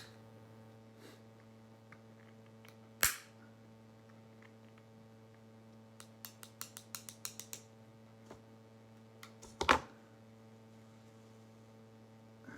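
Metal parts and fasteners being handled during reassembly: a couple of sharp knocks and a quick run of about ten light clicks over a second and a half, over a steady low hum.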